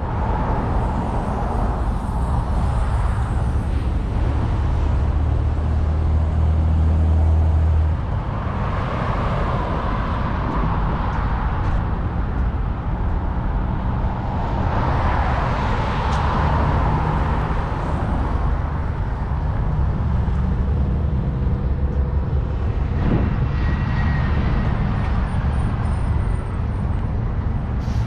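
Road traffic: vehicles passing in swells that rise and fade about three times, over a steady low rumble.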